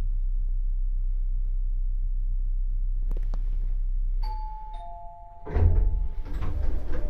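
Daiko elevator's two-note arrival chime: a high ding, then a lower dong about half a second later, both ringing on. Before it a steady low hum runs and stops as the chime starts; a loud thump and rumbling noise follow about a second after the chime.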